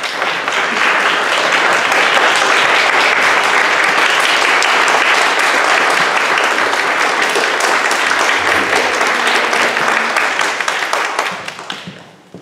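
Audience applauding steadily, many hands clapping, dying away near the end.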